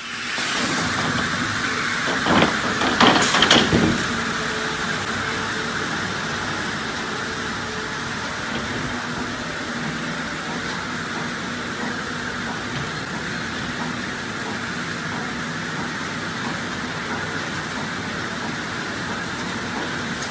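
Board-loading conveyor line of a drying tunnel running: belt conveyors and rack drive make a steady mechanical hum with faint steady tones. A few sharp knocks and clanks come about two to four seconds in.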